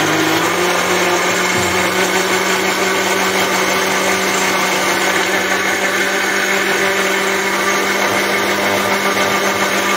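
Electric countertop blender running steadily, blending watermelon chunks with milk into a smooth shake.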